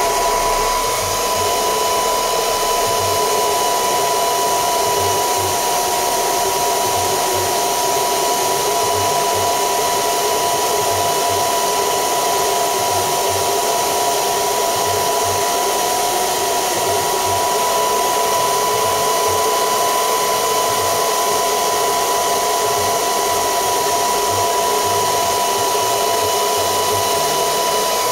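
Small handheld hair dryer running steadily, a whine riding on its rush of air, blowing hot air onto a smartphone's back panel to soften the adhesive for a battery replacement.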